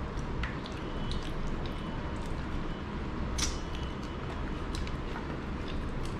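Eating by hand, rice and curry: small wet clicks and smacks from fingers working the food on the plates and from chewing, with one sharper click about three and a half seconds in, over a steady low hum.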